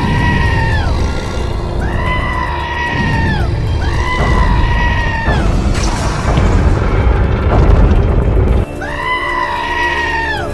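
Cartoon monster sound effects over background music: a high, arching screech repeated four times, each about a second long, over a heavy low rumbling blast from an energy beam that cuts off suddenly near the end.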